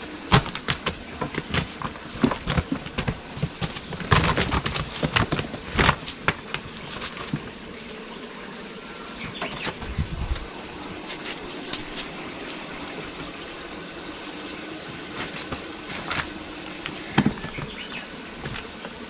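Irregular knocks, taps and scrabbling of kittens climbing, jumping and moving about on wooden boards and a plastic tarp, busiest in the first several seconds, over a steady background noise.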